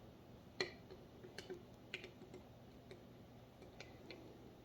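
Plastic Snap Circuits parts clicking and tapping as they are handled and snapped onto the base grid: a handful of faint, irregular clicks, the sharpest about half a second in.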